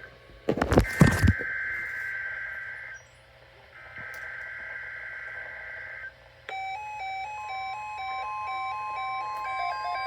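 NOAA Weather Radio sending its SAME alert header: two-tone electronic data bursts, the second ending about three seconds in and the third running from about four to six seconds, announcing an emergency alert. A loud noisy burst cuts in about half a second in. About six and a half seconds in, an alert tone starts: a repeating pattern of stepped beeps over a steady tone.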